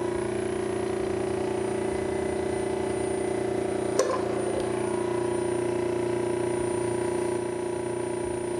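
Peter Pugger vacuum pug mill running in pug mode, its electric motor and auger drive giving a steady hum, with a single sharp click about four seconds in.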